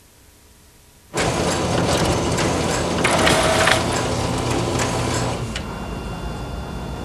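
A machine-like sound effect: dense mechanical noise with many clicks starts suddenly about a second in, then drops to a quieter level with faint steady tones after about four seconds.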